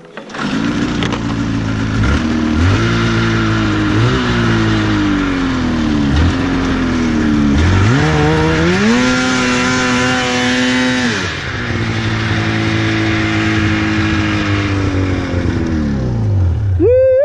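2004 Polaris RMK 800 snowmobile's two-stroke engine revved in several short throttle blips, then held at high revs for about three seconds near the middle and dropping back to a lower steady run, with a sharp rev at the very end. The sled is bogged down in deep snow and being powered out.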